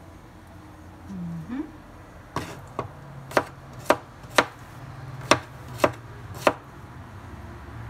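Chef's knife chopping cucumber on a wooden cutting board: about eight sharp, uneven knife strikes, starting a couple of seconds in.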